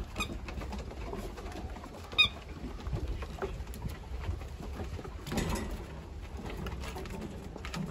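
47-day-old husky–German shepherd mix puppies play-fighting on a wooden deck: paws patter and scuff on the boards, with small puppy vocal sounds. One short, high squeak about two seconds in is the loudest sound.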